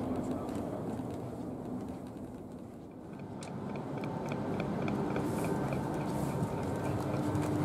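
Steady background hum of a train at a station platform, with a fast, even ticking that starts about three seconds in.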